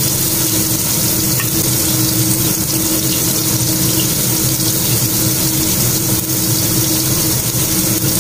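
Steady hiss of a pot of young jackfruit simmering in coconut milk on a gas burner, over a constant low hum, with a ladle scooping and scraping the pot now and then.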